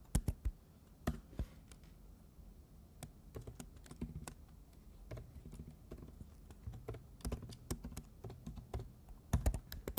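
Computer keyboard typing: irregular keystrokes in short clusters with pauses between them, as commands and text are entered in a terminal text editor.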